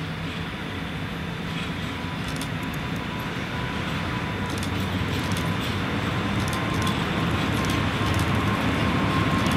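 ET22 electric freight locomotive drawing closer, its motor hum and rail rumble growing steadily louder. A thin steady whine comes up about halfway through.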